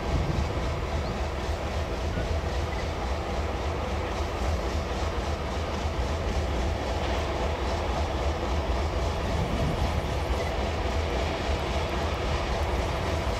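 TEM2U shunting diesel locomotive's engine running steadily as it hauls a train of freight wagons and approaches.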